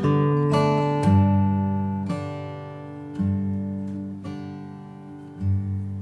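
Closing background music: plucked chords over deep bass notes, slowly fading out.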